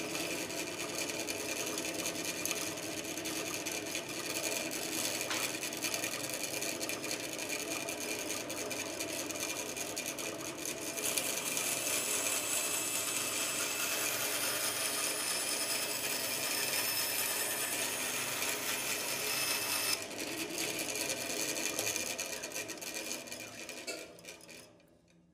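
Bench bandsaw running and cutting through a timber board, a steady sawing noise over the motor's hum. The cut is louder and brighter for a stretch in the middle, and the sound falls away just before the end.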